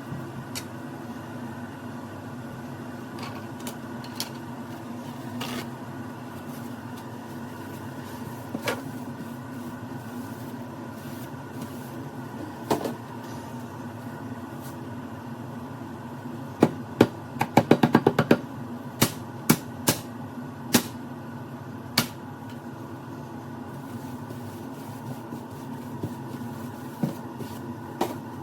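A small motor hums steadily, with scattered sharp clicks and knocks over it and a quick run of rattling clicks a little past halfway.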